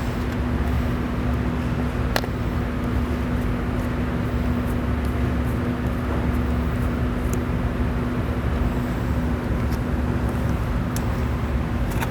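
Steady low machine hum with a constant tone, and a couple of sharp plastic clicks, about two seconds in and near the end, as the black push-pin-held cover is pried off the motorcycle.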